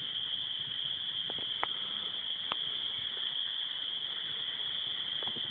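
Steady high-pitched chorus of small calling frogs, with a few faint clicks.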